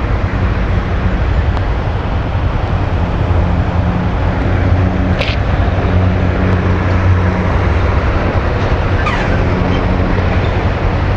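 Honda Fan 160 motorcycle's single-cylinder engine running steadily under way, with steady riding noise. The engine carries an odd noise that the rider likens to knocking and calls a little loud, something he takes for not normal.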